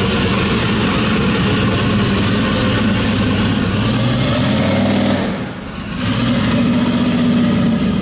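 Turbocharged 6.0-litre gasoline LS V8 of a mega truck running at idle, with a brief drop in level about five and a half seconds in.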